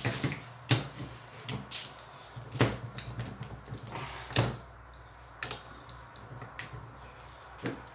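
Scattered metal clicks and knocks from the handle of a Ferguson TEF20 levelling box being twisted and worked onto its greased splined shaft, a stiff fit that resists going on.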